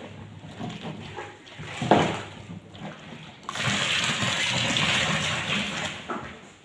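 Warm water being poured into the conditioner mixture: a steady pouring sound for about two and a half seconds from halfway through, after a knock about two seconds in.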